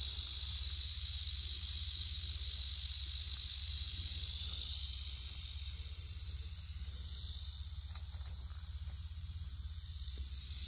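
Timber rattlesnake rattling: a steady high buzzing hiss that dims for a few seconds midway and comes back near the end.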